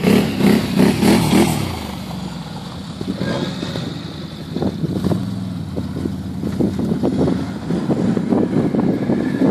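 Engines of a small off-road 4x4 and a quad bike revving, in loud uneven bursts for the first second and a half, then easing off before building again after about four seconds.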